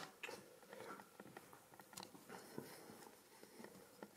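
Near silence in an empty room, broken by faint, irregular clicks and crunches of footsteps on a gritty floor.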